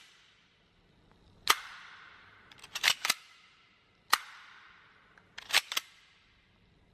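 Double-barrelled CO2 airsoft pistol giving sharp metallic cracks, some single and some in quick pairs, each ringing out briefly in the room.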